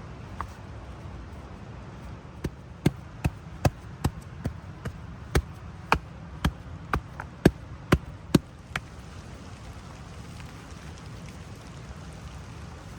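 A run of about fifteen sharp knocks, roughly two a second, starting about two seconds in and stopping about nine seconds in, over a steady low background noise.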